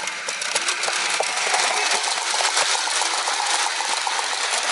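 Gauge One model freight train passing close by: a dense, rapid rattling clatter of its wheels and wagons on the track, growing louder about a second and a half in.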